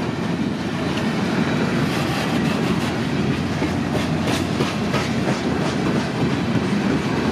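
A Norfolk Southern freight train's heavily loaded steel-coil cars rolling past close by: a steady rumble of wheels on rail, with sharp clacks now and then as the wheels cross the rail joints.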